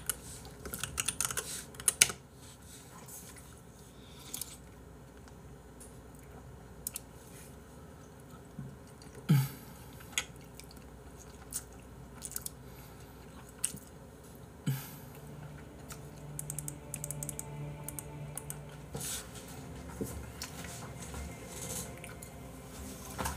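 Scattered light clicks and taps, with two louder knocks about nine and fifteen seconds in and a faint low hum for a few seconds after the second.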